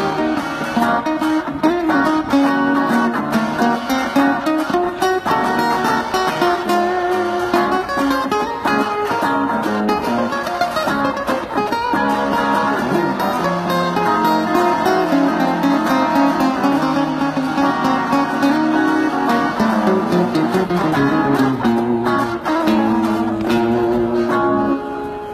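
Several guitars plucked together in an instrumental, a busy run of picked notes and chords.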